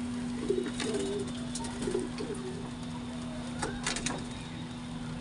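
Domestic pigeons cooing: low warbling coos about half a second in and again about two seconds in, with a few sharp clicks in between and after, over a steady low hum.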